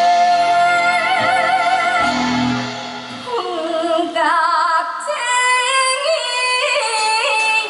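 Live singing of long held notes with wide vibrato over a band accompaniment. About three seconds in, the low accompaniment drops away and the voice climbs to higher, shorter held notes with vibrato.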